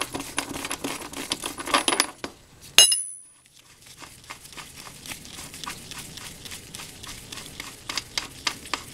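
Hand tools on a motorcycle's rear axle nut: a run of quick metallic clicks, one loud ringing metal clink a little under three seconds in, then steady light clicking about three times a second as the nut is worked loose.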